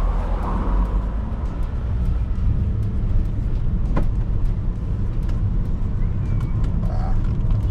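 A car driving, heard from inside the cabin: steady low engine and road rumble, with one sharp click about four seconds in.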